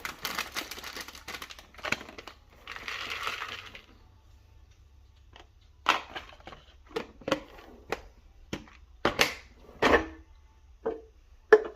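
Household items being handled while a kitchen is arranged: rustling and light clicks at first, then a series of about ten separate knocks and clatters as things are set down, the loudest near the end.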